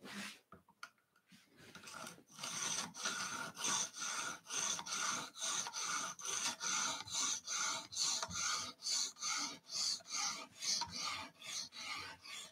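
220-grit aluminum oxide stone on a guided-rod sharpener rasping back and forth along the edge of a Spyderco Paramilitary 2 knife blade, in an even rhythm of about two strokes a second. A few light clicks come before the strokes start, about two seconds in.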